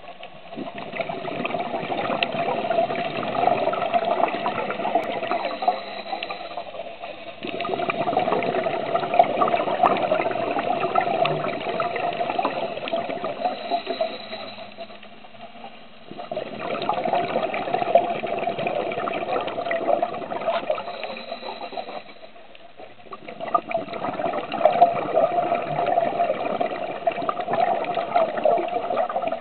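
Water moving underwater, heard through a camera housing: a crackling wash that swells and fades in four long surges, each several seconds long, with short lulls between them.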